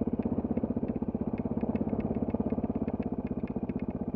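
Off-road trail motorcycle engine idling with a steady, quick, even beat; there is no revving.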